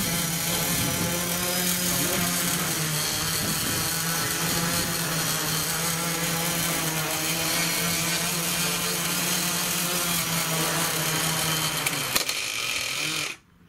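Small home-built quadcopter's electric motors and propellers buzzing steadily as it hovers low. About twelve seconds in it sets down on concrete with a knock, and the motors cut out just over a second later.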